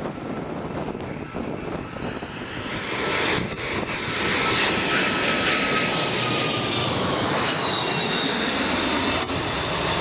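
Qantas Boeing 747-400's four Rolls-Royce RB211 turbofans on final approach, passing low overhead: the jet rush builds over the first few seconds to a loud, steady roar, with whining engine tones that slide down in pitch as the aircraft goes over.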